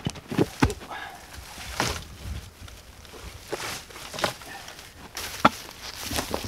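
Footsteps crunching on thin snow and the rustle and crackle of cut evergreen boughs being handled and set down, with a few sharp snaps of twigs at irregular moments.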